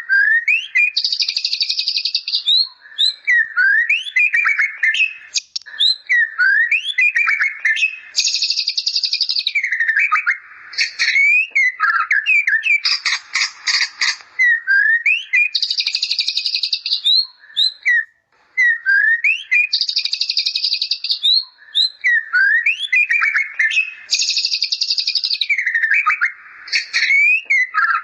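White-rumped shama (murai batu) singing a song filled with bar-winged prinia (ciblek) imitations. Quick upswept whistles and chirps are broken by buzzy trills lasting about a second, and the same phrases come round every few seconds.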